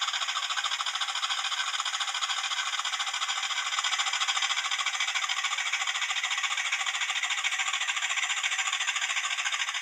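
Hornby Class 20 TTS sound decoder playing the locomotive's English Electric diesel engine running, a steady, fast, even throb. It sounds thin and tinny with no bass, as it comes from the model's small onboard speaker.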